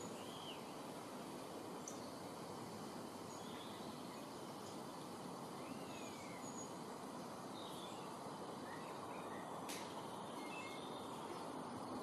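Steady outdoor background hiss with faint, scattered chirps and short calls of small songbirds, and one sharp click about ten seconds in.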